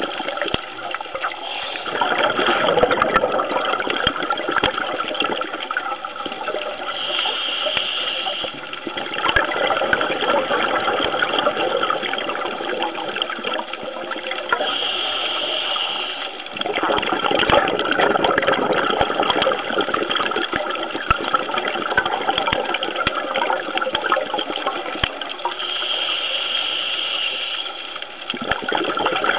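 Rushing, bubbling water heard underwater, muffled and continuous, swelling and dropping back a few times.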